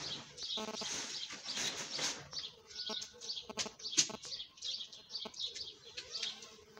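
Small birds chirping over and over in the background, with rustling from the pop-up tent's mesh door being handled and one sharp click about four seconds in.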